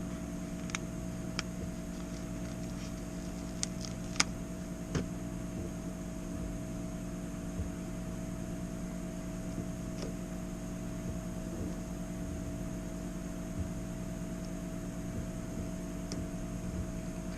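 Steady electrical machine hum with several fixed tones, and a few light clicks and taps in the first five seconds.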